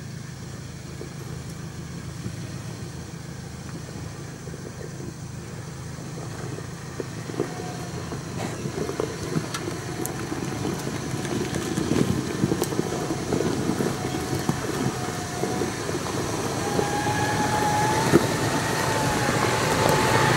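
Toyota Land Cruiser 80-series engine running at low revs as the 4x4 crawls down a rocky track, growing steadily louder as it approaches, with stones crunching and clicking under the tyres.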